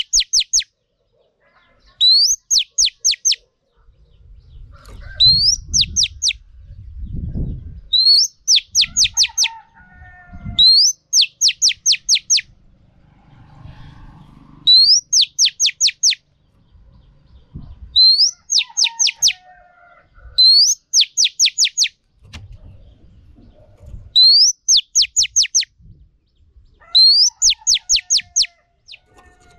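Female oriental magpie-robin repeating one short call phrase every two to three seconds: a rising whistle followed by a quick run of four or five sharp, high notes. Low rumbles and thuds come between some of the phrases.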